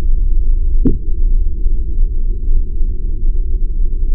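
Steady low rumble of wind buffeting the camera microphone, with one sharp click about a second in.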